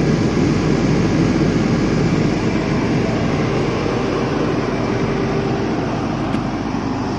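Isuzu 4BD1-Z four-cylinder diesel generator set running steadily inside its soundproof canopy, held at about 1500 rpm for 50 Hz output with no electrical load on it.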